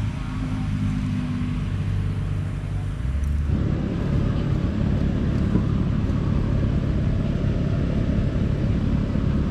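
Steady low outdoor rumble with a low hum in it. About three and a half seconds in, it changes abruptly to a heavier, rougher low rumble.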